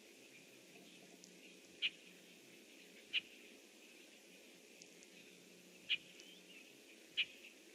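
Red-winged blackbird giving single short, sharp call notes, four of them at uneven gaps of one to three seconds.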